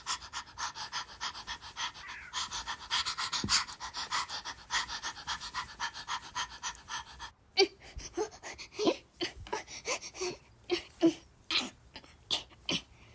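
A person's quick, breathy panting, about six or seven breaths a second. A little past halfway it gives way to slower, louder voiced huffs and grunts of effort, two or three a second.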